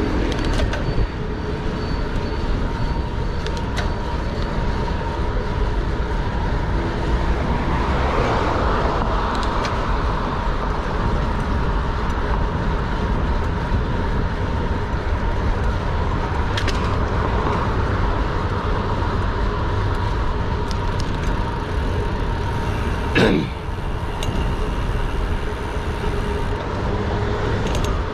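Steady city street traffic noise, with a brief sharp knock about two-thirds of the way through.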